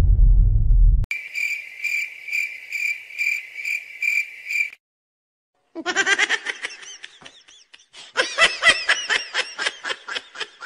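Cricket chirping: a steady high trill pulsing about three times a second, which stops suddenly before the middle. After a second of silence comes high-pitched laughter, a fast string of short ha-ha pulses.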